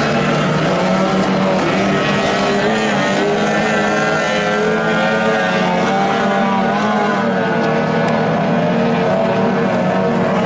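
Engines of several small racing boats running flat out on the water, two or more engine notes at once that rise and fall in pitch as the boats pass.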